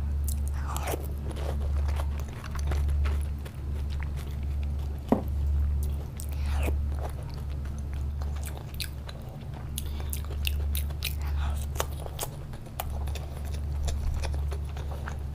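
Close-miked chewing of a mouthful of dahi puri, with many short mouth clicks over a steady low pulsing.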